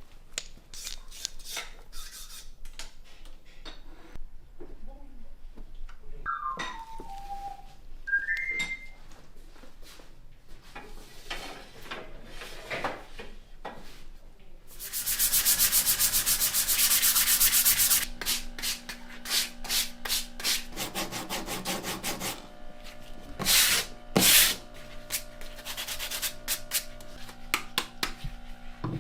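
Hand sanding and rubbing on a ceramic ocarina, with scattered scrapes and clicks, then a loud, even run of a small power tool for about three seconds past the middle, followed by knocks over a steady hum.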